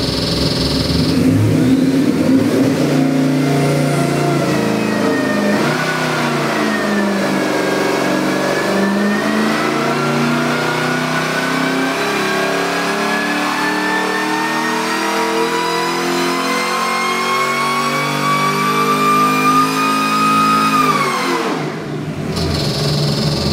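Whipple-supercharged 427 cubic-inch LS V8 making a full-throttle sweep pull on an engine dyno. The engine note climbs steadily from low revs for about thirteen seconds with a whine rising along with it, then drops suddenly as the throttle closes and settles back to idle.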